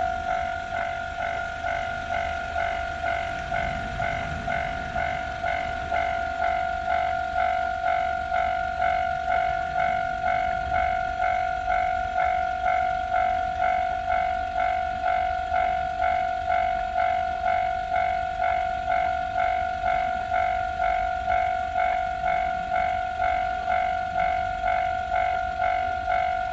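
Japanese railway level-crossing warning bell ringing: an electronic ding repeated at a steady, quick rate on one pitch.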